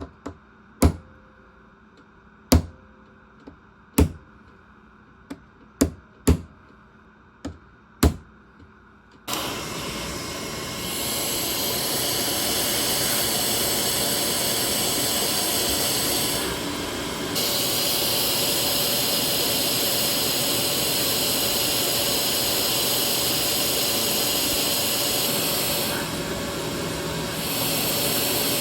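About eight sharp knocks in the first nine seconds. Then a power grinding tool switches on suddenly and runs with a steady, hissing grind. It dips briefly twice, as the work lifts off.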